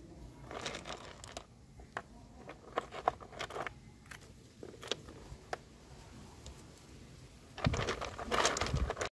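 Lava rocks in a planter bowl clicking and scraping against each other as a hand moves them: scattered single clicks, then a louder, denser run of crunching and scraping near the end.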